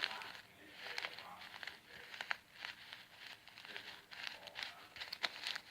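Light crinkling of plastic packaging around foam slime beads as it is handled, with scattered small clicks and ticks.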